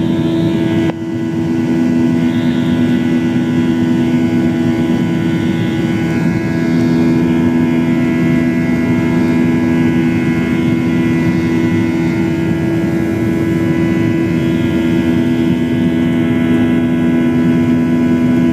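Boeing 737-800's CFM56 jet engines running at takeoff or climb thrust: a loud, steady drone with two strong hum tones and a higher whine over it. The level dips briefly about a second in.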